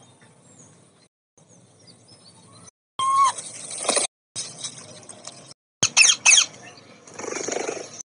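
Parrot squawks and calls in short pieces that break off into sudden silences, with two loud, sharp calls about six seconds in.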